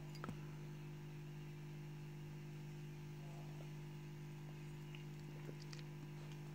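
Aquarium filter pump humming steadily at a low pitch, with a few faint clicks.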